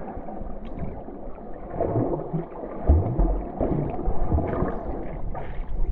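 Muffled underwater sound from a camera held below the surface of a cenote: water gurgling and sloshing, with scattered low thumps and one louder thump about three seconds in.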